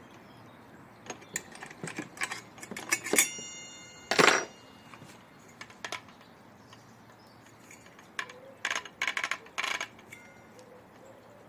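Clicks and metallic clinks of tools and saw parts being handled while the circular saw's fittings are checked and tightened. There is a short metallic ring about three seconds in, a heavier knock a second later, and another cluster of clicks near the end.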